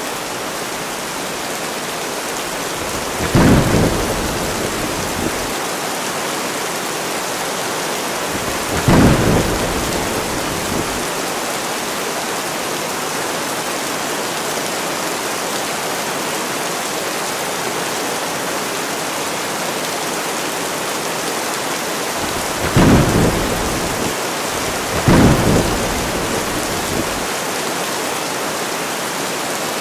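Steady heavy rain hissing, broken four times by short thunderclaps that trail off into a low rumble: one a few seconds in, one near ten seconds, and two close together near the end.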